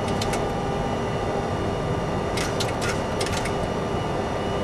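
Steady cockpit noise of a Boeing 737-300 on approach: airflow and engine noise with a few faint steady electronic tones, and a short run of light clicks about halfway through.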